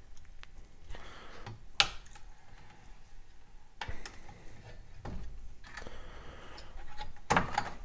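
Light clicks and taps from a homemade sheet metal brake being handled as a small strip of 22-gauge steel is clamped and bent in it. A sharp click comes about two seconds in, another about four seconds in, and a short cluster of knocks near the end.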